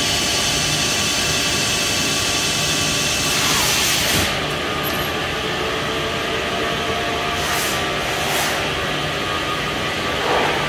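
Haas SL-30 CNC lathe running with its spindle and 3-jaw chuck spinning: a steady machine hum with a few short bursts of hiss, the loudest about four seconds in and two shorter ones a few seconds later.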